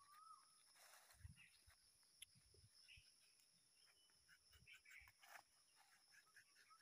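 Near silence: faint rural outdoor ambience, with a steady high-pitched insect drone and a few faint chirps and small rustles.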